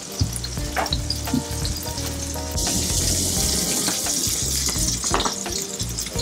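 Ground beef burger patties sizzling and crackling in a skillet with butter and their own grease as they sear. The sizzle gets louder about two and a half seconds in.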